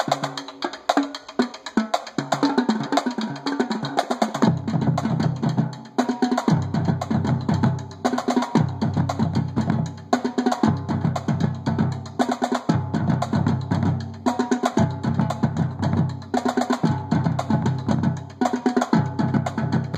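Marching drum line playing a cadence: snare drum and tenor drums in rapid strokes, joined about four seconds in by tuned bass drums playing repeated runs in phrases about every two seconds.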